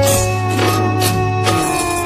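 Background music: an instrumental passage with sustained notes and a percussion beat about twice a second.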